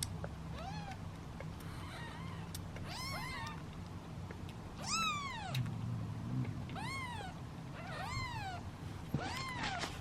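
Hungry British Shorthair kittens meowing impatiently while waiting to be bottle-fed. There are about eight high-pitched meows, each rising then falling, sometimes two voices overlapping, with the loudest about halfway through. A steady low hum runs underneath.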